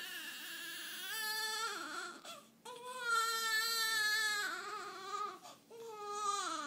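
Newborn baby crying in about four high-pitched wails with short breaths between them, the longest and loudest in the middle, while being wrapped in a blanket.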